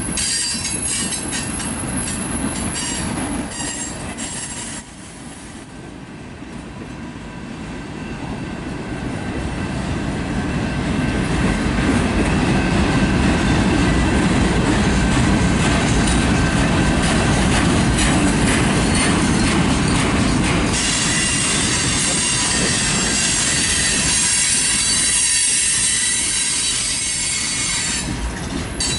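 Freight cars of a mixed manifest train rolling past: steel wheels rumbling on the rails with a thin, steady squeal and some clicking over the rail joints. It drops quieter about five seconds in, then builds louder again and stays loud.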